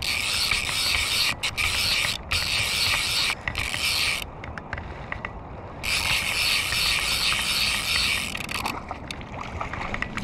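Speyco click-and-pawl fly reel buzzing while a hooked American shad is played: two long stretches of fast ratcheting, broken off for nearly two seconds in the middle, with a few short breaks in the first.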